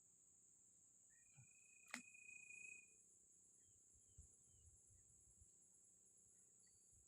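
Faint, steady high-pitched drone of insects. A sharp click comes about two seconds in, with a thin held whistling note across it.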